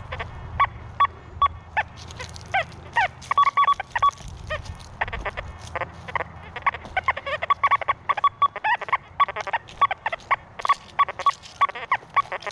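XP Deus II metal detector sounding in pitch-tone mode: short chirping beeps, some sliding up and down in pitch, coming in a rapid, dense chatter from about halfway in as the coil passes over many targets in trash-filled ground.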